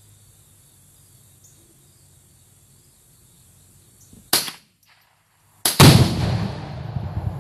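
A sharp rifle shot cracks out, and about a second and a half later another shot is followed almost at once by the heavy boom of a .22-sensitive binary exploding target detonating, its low rumble dying away slowly.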